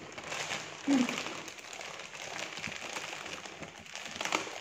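Crunching of crispy crackers being chewed, a dense run of small crackles. A short hum of the voice comes about a second in, and the thin plastic bag crinkles near the end.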